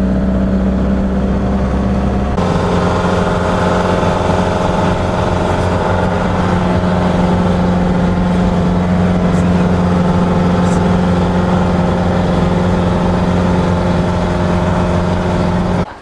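Tour vehicle's engine running steadily under load as it climbs a mountain road, heard from inside the cabin, with a slight change in its note about two seconds in.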